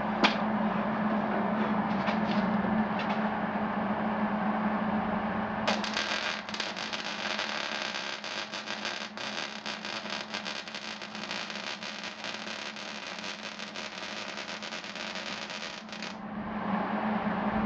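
A steady low hum, then about six seconds in an arc welder strikes up and crackles steadily for about ten seconds as a bead is laid, stopping shortly before the end.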